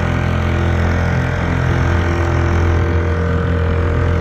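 Small Chinese 4 hp four-stroke outboard, a Honda-clone engine, running steadily while pushing a small boat.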